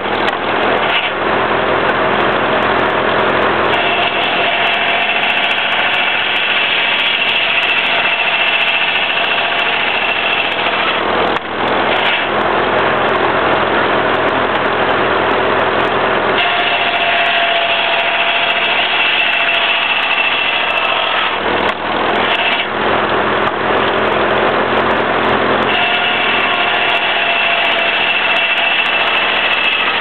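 Shingle mill running, its circular saw slicing shingles from a wood block: three long cuts of several seconds each, during which the saw holds a steady high whine, over the constant running of the mill and the sawmill behind it.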